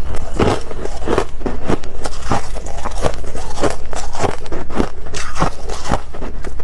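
Close-miked chewing of mouthfuls of freezer frost: crisp, loud crunches in a steady chewing rhythm, a little under two a second.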